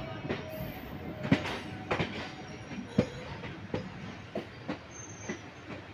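Steel train wheels clicking and knocking over rail joints and points under a rumbling run, heard from aboard a moving train. The knocks come about once or twice a second and grow fainter near the end.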